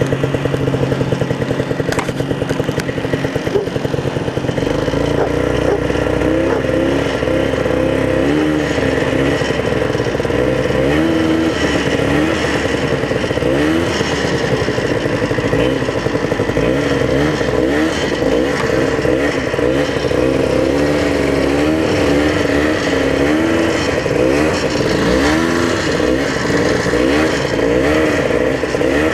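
Vintage Ski-Doo snowmobile's two-stroke engine running under way, its pitch rising and falling every second or two as the throttle and speed change.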